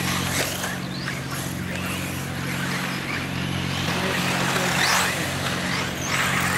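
Electric 1/8-scale RC buggies racing on a dirt track: their motors whine, rising in pitch as the cars accelerate, clearest about five seconds in and again near the end, over a steady low hum.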